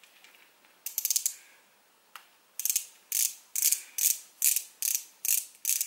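Brush-tip click-pen concealer (Makeup Revolution Eye Bright Illuminating Under Eye Concealer) being clicked at its twist base to push the concealer up to the brush. A quick cluster of ratchety clicks about a second in, then a steady run of clicks, about two and a half a second.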